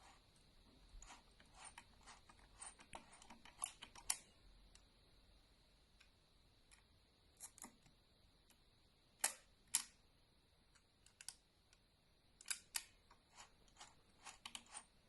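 Scattered sharp mechanical clicks from a Voigtländer Bessa 46 folding camera being worked: shutter releases, frame-counter slides and the film-advance knob, as several frames are shot and wound on. The loudest are a pair of clicks about half a second apart, a little past the middle.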